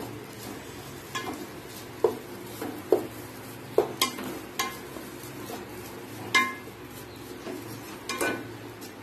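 Wooden spatula stirring cooked rice and grated carrot in a nonstick pan, with irregular knocks and scrapes against the pan and an occasional short metallic clink.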